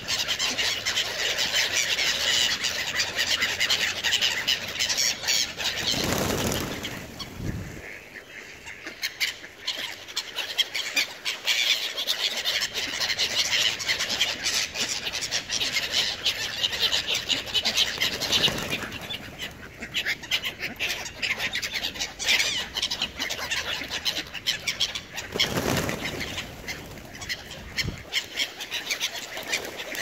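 A dense flock of feral pigeons flapping and clapping their wings as they take off, land and jostle for food, a busy clatter of wingbeats with bird calls mixed in. Twice a brief low rumble.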